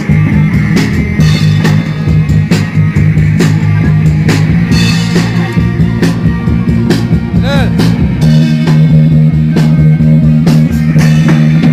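A rock band playing an instrumental passage: electric guitar and held bass notes over a steady drum-kit beat, with one short sliding pitch about halfway through.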